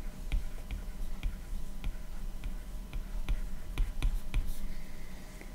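Stylus tip tapping and clicking on a tablet's glass screen as a word is handwritten: light, irregular clicks about three or four a second that stop about a second before the end, over a faint steady hum.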